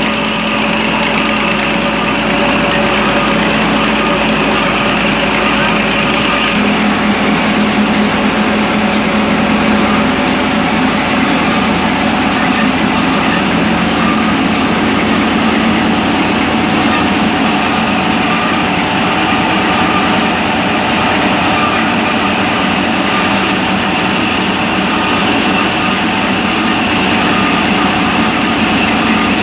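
Cotton ginning machine running steadily, a constant mechanical drone with steady humming tones from its engine drive and rollers. The sound's character shifts slightly about six and a half seconds in.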